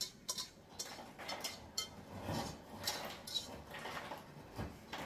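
Kitchen cookware and utensils clinking and scraping in a run of irregular light knocks and clatters, as pasta is handled in a pot and baking dish.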